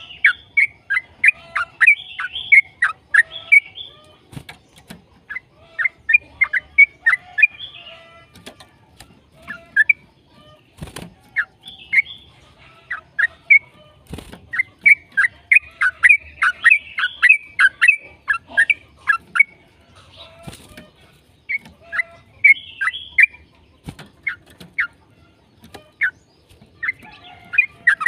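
Yellow-vented bulbul (trucukan) singing in rapid bursts of short chattering notes, each burst a few seconds long, with short pauses between. A few sharp clicks break in.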